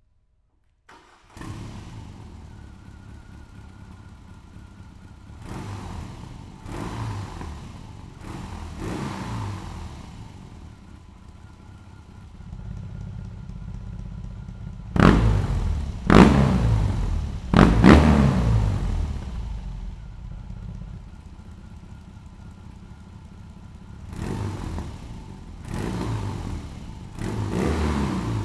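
BMW R18's 1800cc boxer twin through an electronically adjustable aftermarket exhaust: it starts about a second in, then idles between three sets of three quick throttle blips. The middle set, with the exhaust valve opened, is the loudest.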